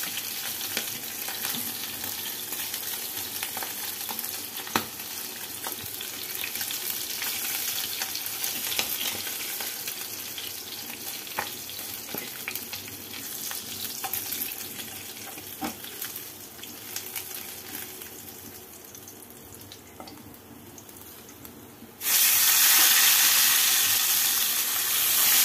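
Tangra fish frying in mustard oil in a kadai: a steady sizzle with occasional sharp taps of the spatula against the pan as the fried fish are lifted out. The sizzle fades slowly, then turns suddenly much louder near the end with a fresh batch of fish in the hot oil.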